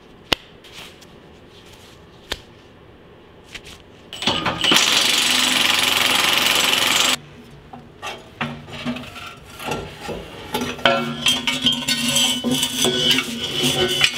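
A couple of sharp snaps as nitrile gloves are pulled on. A power tool then runs loudly and steadily for about three seconds. After it come irregular metal clanks and rattles as a Humvee's exhaust pipe is worked loose and pulled out from under the truck.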